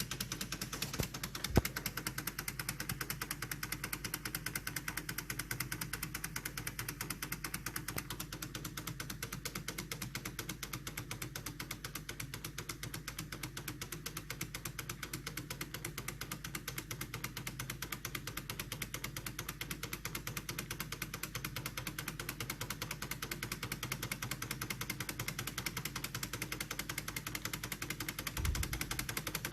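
3D-printed Stirling (hot air) engine running, its printed parts clattering in a rapid, even rhythm. A single sharper knock comes about a second and a half in, and a low thump near the end.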